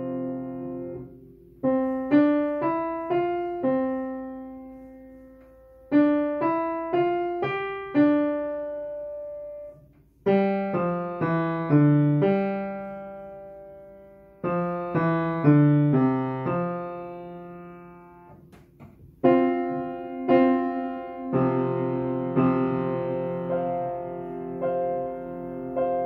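Yamaha upright piano played slowly: a simple melody in short phrases of single notes, each phrase ending on a held note that rings out. Near the end several notes are held together as a chord that sustains and slowly fades.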